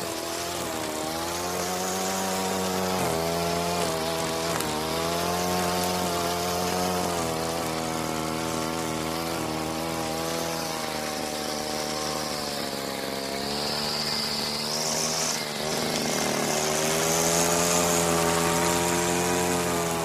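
Grass cutter's small engine running steadily, its pitch rising and falling a little as the throttle varies, with a brief dip about fifteen seconds in before it picks up again.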